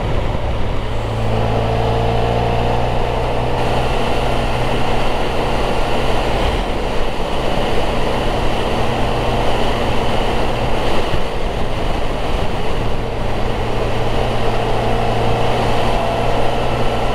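Motorcycle engine running at steady cruising speed, with wind rushing over the microphone; the engine note rises slightly a couple of times.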